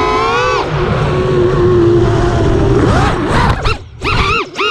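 FPV quadcopter's brushless motors and propellers whining with low wind rumble. The pitch rises, drops about half a second in and holds steady, then swoops rapidly up and down with brief throttle cuts near the end as the quad is thrown around.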